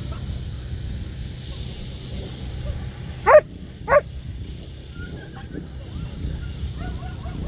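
A dog barking twice, loud and short, about half a second apart a little over three seconds in, then several faint yips. A steady low rumble runs underneath.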